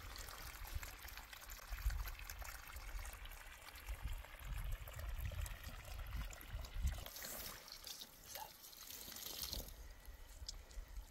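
Water trickling and pouring in a steady flow, with small drips and splashes and occasional low thuds.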